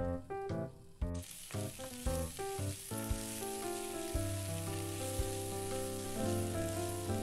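Sliced potatoes sizzling in oil in a nonstick frying pan while a wooden spatula turns them. The sizzle comes in suddenly about a second in, under background music with a steady beat.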